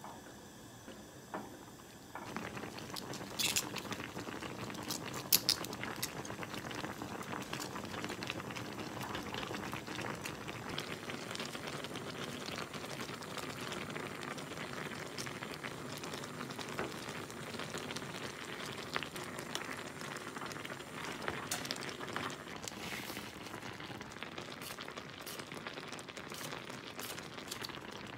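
Spicy tteokbokki broth bubbling steadily at the boil in a saucepan, coming in about two seconds in. A couple of sharp clicks stand out a few seconds later.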